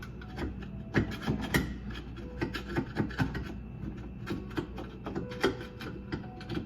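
Irregular scraping, clicks and knocks of hand work on a jammed garbage disposal, hard objects rubbing and knocking against each other.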